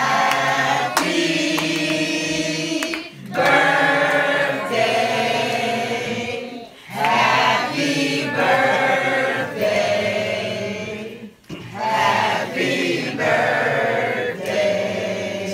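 A group of people singing together in long held phrases, with short breaks about 3, 7 and 11 seconds in.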